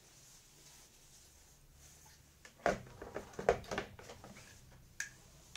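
A few sharp plastic clicks and knocks about halfway in, with one more near the end, as a vacuum cleaner's motor is seated into its plastic motor housing.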